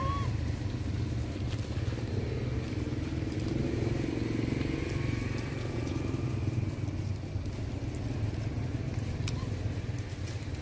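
A motor vehicle engine running steadily, a continuous low hum, with a few faint clicks.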